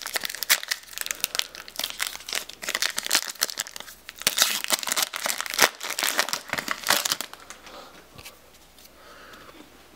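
Trading card booster pack's foil wrapper crinkling and tearing as it is opened by hand, a dense run of crackles that stops about seven seconds in.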